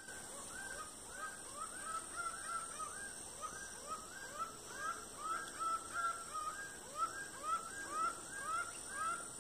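Laughing falcon (acauã) singing: a long run of short, rising call notes, about two a second. This is the song that local folk belief takes for an omen of death.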